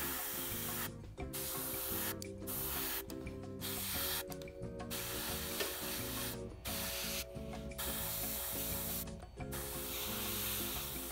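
Gravity-feed airbrush spraying paint in light coats: a hiss of air and paint in bursts of about a second, cut off and started again about eight times as the trigger is released between passes. Background music with sustained tones plays underneath.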